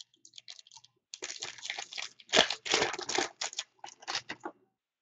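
A 2015 Topps Chrome baseball card pack's wrapper being torn open and crinkled: an irregular run of crackling rustles that starts about a second in and stops shortly before the end.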